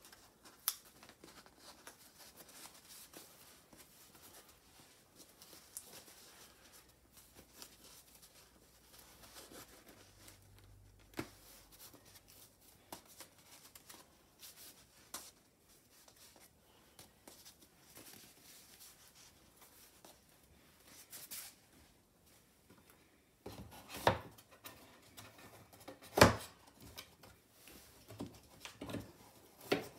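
Faint rustling and rubbing of a hanging scroll being rolled up by hand, with scattered small clicks. Near the end come a few sharp wooden knocks as the rolled scroll is set into its wooden storage box, the loudest about three-quarters of the way through.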